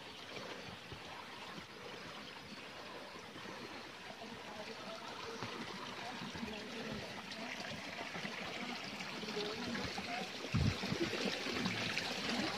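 Steady rush of running water, like a small stream or trickle, growing gradually louder, with a low thump near the end.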